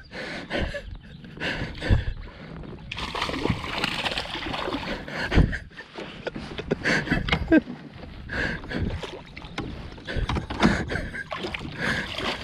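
Water splashing around a kayak as a hooked bass is fought and brought in beside it, with scattered knocks and bumps and a longer burst of splashing about three seconds in.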